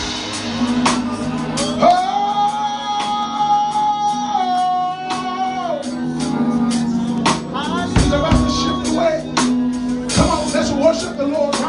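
Live church worship music: sustained chords with frequent drum and cymbal hits, and a voice singing one long held note from about two seconds in to about six.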